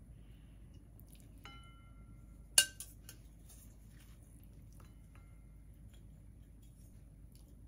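A serving utensil clinks against a ceramic plate as shredded daikon and cucumber salad is set down and arranged on it. There is a short ringing clink about a second and a half in, a sharp, loudest one about two and a half seconds in, and a fainter ringing clink near five seconds.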